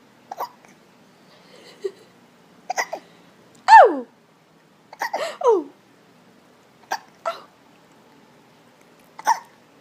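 Repeated hiccups, short and sharp, coming irregularly about once a second. A few carry a brief squeaky cry that slides down in pitch, the loudest of them just before the middle.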